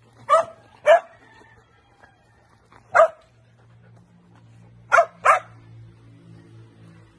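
Belgian shepherd dogs barking: five barks, two about half a second apart near the start, one about three seconds in, and two in quick succession around five seconds in.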